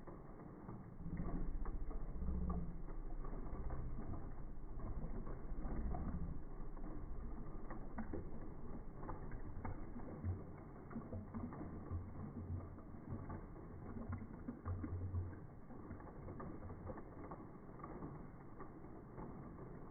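Chocolate milk pouring from a carton into a tall glass, the audio slowed down with the slow-motion video into a low, irregular rumble with scattered clicks, louder from about a second in.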